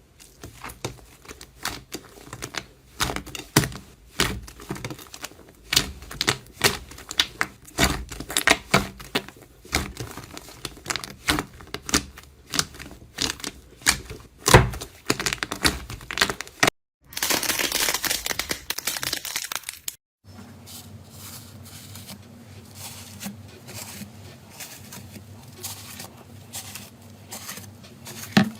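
Slime being pressed and worked by hand, giving rapid, irregular sharp crackles and clicks. About two-thirds of the way through, it cuts to a few seconds of steady hiss. After a short break comes a quieter clip with faint crackles over a low steady hum.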